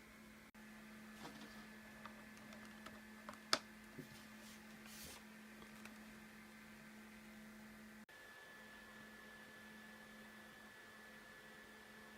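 Near silence: a steady low hum of room tone, with a few faint scattered clicks in the first five seconds and one sharper click about three and a half seconds in.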